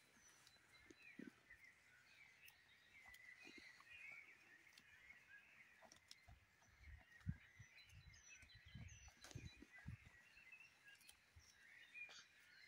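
Faint birdsong: many small chirps run on throughout. In the middle come a few soft low thumps and rustles, with one sharper knock about seven seconds in.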